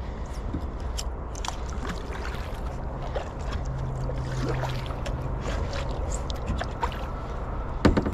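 Water trickling and dripping around a plastic kayak's hull as it glides, with scattered small ticks and drips and a sharper knock near the end. A low hum comes in for a couple of seconds in the middle.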